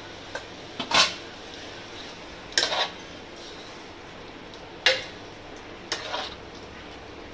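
Clinks and knocks of metal utensils against a cooking pot as raw chicken pieces are tipped into the masala: about five sharp strikes, the loudest about one second and five seconds in.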